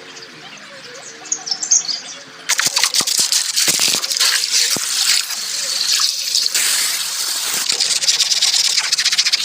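A high-pressure water jet spraying onto a car. It starts suddenly about two and a half seconds in as a loud, steady hiss with crackling spatter. Faint bird chirps come before it.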